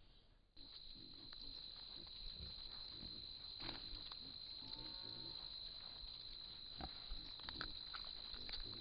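Faint night-time outdoor sound from a trail camera: a steady high-pitched insect trill, with scattered soft rustles and ticks, and a short pitched animal call about five seconds in.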